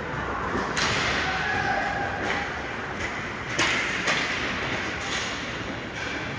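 Ice hockey play on a rink: several sharp knocks of sticks and puck, with one against the boards, and skates scraping the ice, over a steady arena hum.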